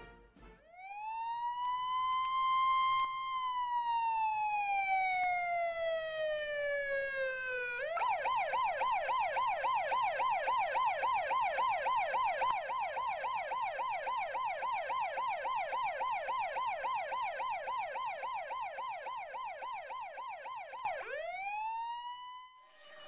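Police siren: a wail that rises over about two seconds, holds briefly, then falls slowly, before switching to a fast yelp of about three up-and-down cycles a second; near the end it rises quickly once more and cuts off.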